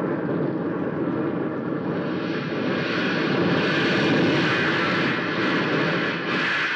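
Radio-drama sound effect of an Aerobee rocket igniting and lifting off: a loud, dense rushing noise that starts sharply, swells a little toward the middle and holds steady.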